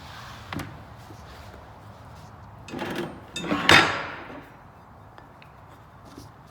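Weed wiper parts being handled during assembly: a light knock, then a scrape and a louder clunk a little past halfway that rings briefly.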